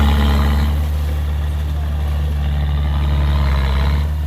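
Heavy diesel engine of earthmoving machinery running steadily with a deep, even hum, and extra mechanical clatter swelling at the start and again near the end.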